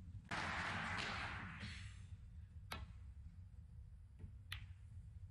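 Audience applause breaks out sharply and fades away over about a second and a half. Then come two sharp clicks of snooker balls, a couple of seconds apart.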